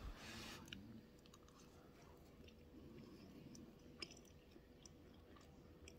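Faint close-up chewing of a mouthful of spaghetti bake: soft, scattered wet mouth clicks.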